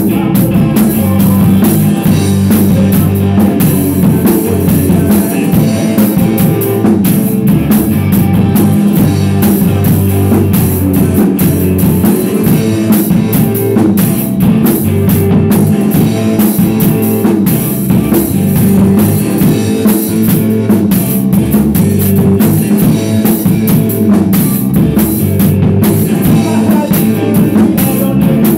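A rock band playing loudly in the room: electric guitar and drum kit, with no singing.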